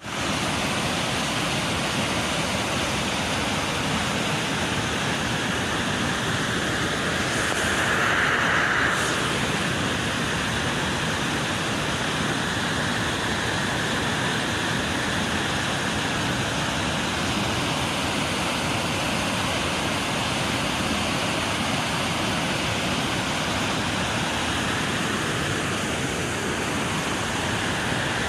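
Overflowing lake water pouring down a dam's stepped spillway: a steady, dense rush of falling water, briefly louder about eight seconds in.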